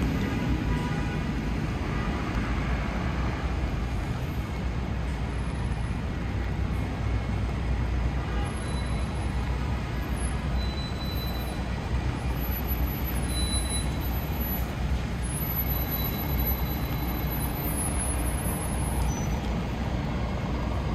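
Steady city street traffic on a rainy day: a continuous low rumble of passing engines with an even hiss over it, no single event standing out.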